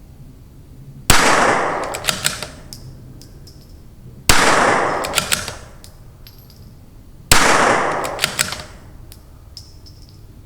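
Three shots from a CZ 457 bolt-action .22 LR rifle with an ATS barrel tuner, firing RWS Rifle Match, about three seconds apart. Each shot rings out for over a second and is followed by a few sharp clicks as the bolt is worked.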